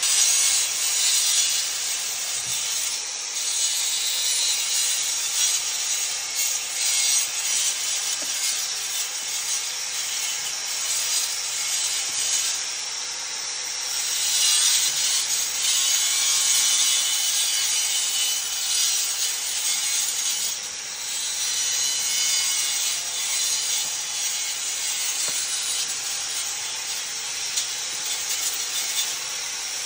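Harsh, steady hissing rasp of brickwork being abraded by a hand-held tool, rising and falling in intensity as the tool works the brick face and joints.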